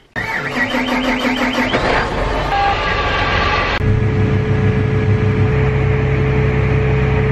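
Tractor engine under load driving a grain cart's unloading auger as soybeans pour into a semi trailer, heard inside the tractor cab. It starts suddenly and changes abruptly about halfway through to a steady drone with a constant hum.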